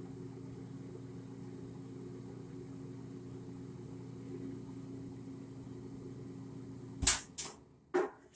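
GE gas dryer running with a steady motor hum that cuts off suddenly about seven seconds in, followed by a few sharp clicks and knocks.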